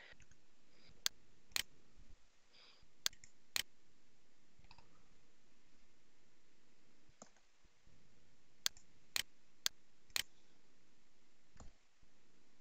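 Computer mouse button clicking: sharp single clicks, mostly in pairs about half a second apart, with two pairs in the first four seconds and a run of four around nine to ten seconds. A few fainter clicks fall between them over a low steady hiss.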